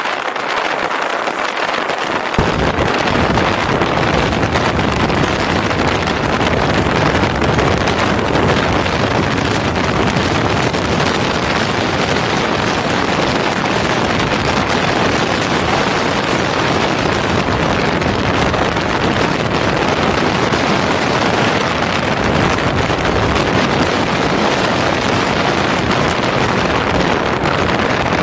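Wind rushing over the microphone of a camera mounted on a moving motorcycle, a steady loud roar of air with the bike's road noise underneath; a deep rumble joins in about two seconds in.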